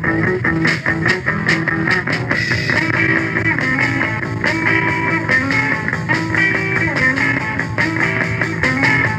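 Live rock band playing, with guitar and drum kit over a steady beat, recorded in a club.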